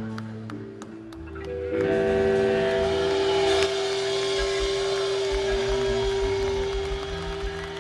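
Live rock band on electric guitars and bass holding one long sustained note from about two seconds in, with wavering, bending guitar tones over it and a low pulsing underneath.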